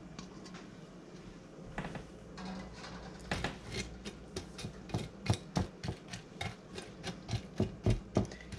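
Rubber spatula pressing and tapping buttered crushed pretzels down into a glass baking dish: a run of quick, irregular taps and crunches, several a second, getting busier after the first few seconds.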